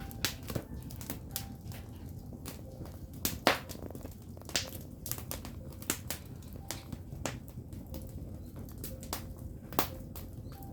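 Wood fire burning: firewood crackling and popping at irregular intervals over a low, steady rumble, with the sharpest pop about three and a half seconds in.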